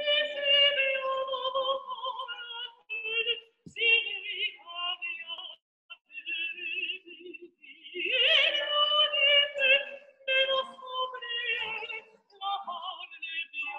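A woman singing in an operatic style: high, long-held notes with vibrato and short breaks between phrases.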